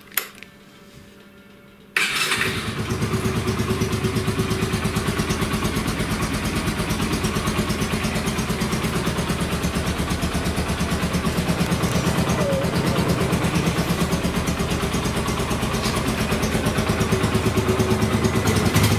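Yamaha YBR 125's single-cylinder four-stroke engine starting suddenly about two seconds in, just after a click at the switch, then idling steadily with a fast, even beat. It is running on petrol mixed with Stihl two-stroke oil, which the owner says keeps the revs from dropping when the engine is cold.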